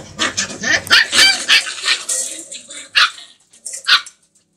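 Pit bull puppies yapping in high-pitched yips and barks: a rapid, overlapping flurry over the first two seconds, then two single sharp barks about three and four seconds in.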